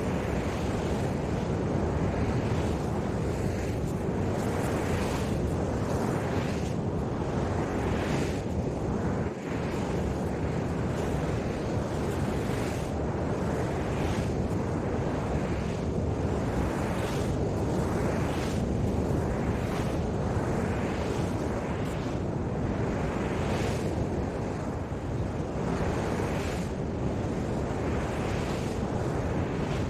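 Wind buffeting the microphone over the steady wash of surf, with soft swells every second or two.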